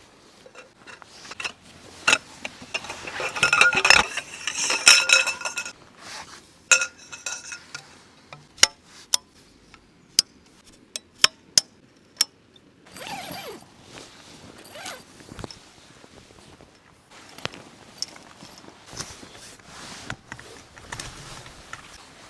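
Tent-pitching handling sounds: a tent pole clinking and scraping with canvas rustling, then a run of sharp separate clicks as the pole's sections are fitted together.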